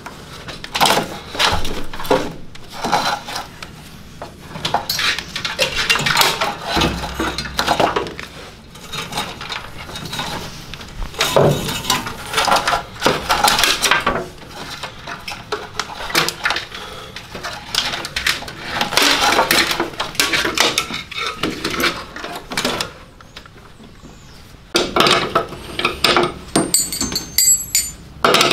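Irregular rustling and clattering as loose wiring is pulled out of a car's engine bay, wires and connectors knocking against the metal bodywork. Near the end, metal spanners clink with a light ringing.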